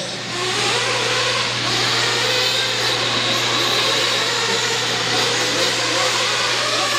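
Off-road race trucks' engines running on the track, a steady mechanical din over a constant low hum.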